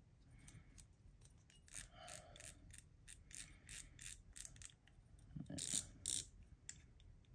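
Light, irregular mechanical clicks and ratcheting as fly reel parts and a small metal tool are handled during reassembly, with two sharper clicks about five and a half and six seconds in.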